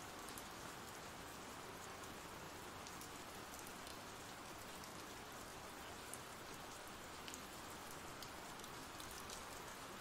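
Faint, steady rain falling: a continuous ambient rain sound-effect bed, with a few light drop ticks.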